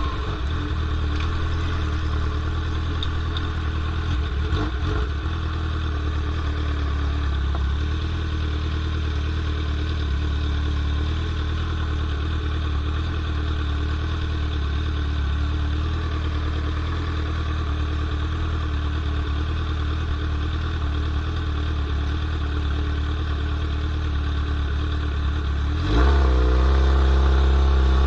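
Straight-piped 2003 Yamaha R1 inline-four engine running steadily at constant revs, then revving up sharply about two seconds before the end, its pitch climbing.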